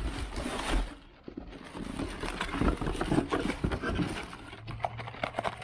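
Cardboard box and plastic air-pillow packing rustling and scraping as parts are handled and lifted out by hand, in a run of short irregular scrapes and clicks.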